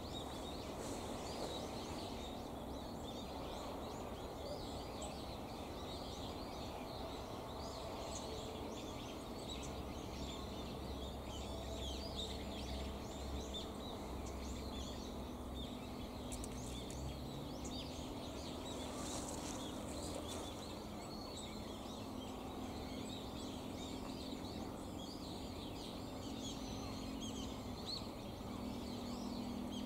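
Small birds chirping and twittering, with many short high calls, over a steady low hum and rumble.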